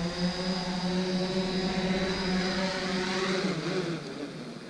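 Quadcopter drone's propellers humming steadily as it is brought down to land on a low battery, then dropping in pitch and fading out about three and a half seconds in as the motors wind down.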